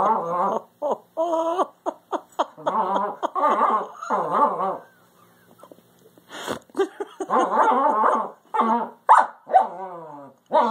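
Dogs vocalizing at each other in play: a long run of short pitched whines and barks that rise and fall, with a pause of over a second about halfway through.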